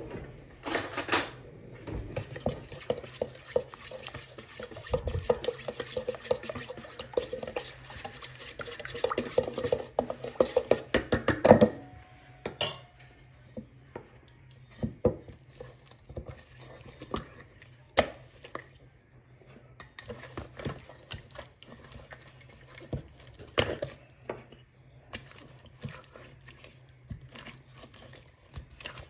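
Spices and oil being stirred in a stainless steel bowl: quick, continuous metal-on-metal scraping and clinking for about the first twelve seconds, then scattered single clinks and knocks.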